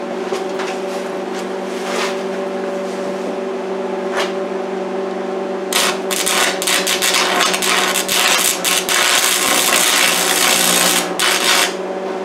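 Stick (arc) welding a steel pipe post to a steel plate: the electrode's arc crackles loudly from about six seconds in until shortly before the end, over a steady hum. Scattered ticks come before the arc runs.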